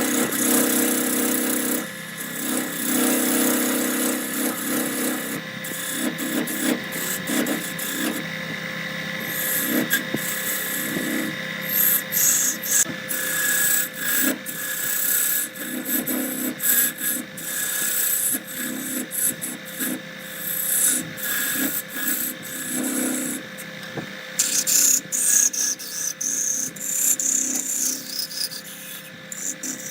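Wood lathe running while a turning tool cuts and scrapes the spinning wood: a steady motor hum under uneven rasping with many short clicks.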